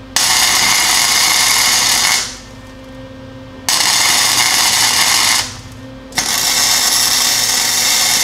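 Flux-core wire-feed welder tacking a steel track bar bracket onto the axle tube: three loud bursts of arc noise, about two seconds, two seconds and over three seconds long, with a steady low hum in the short gaps between them.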